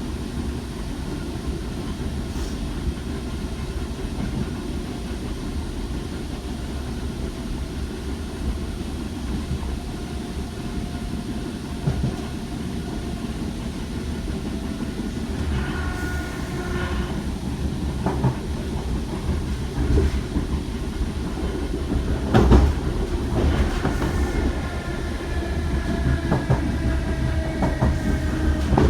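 Heard from on board, a DART class 8100 electric train running along the line: a steady rumble with the wheels clicking over rail joints. From about halfway through, thin whining tones come and go, and the sound grows a little louder toward the end.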